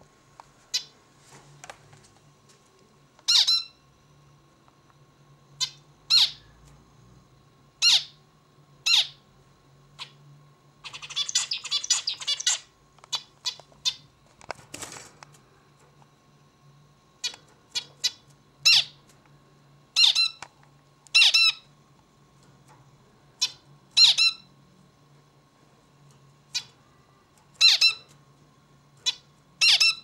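Male zebra finch calling: short, sharp call notes every second or two, broken about eleven seconds in by a quick run of rapid notes of its song.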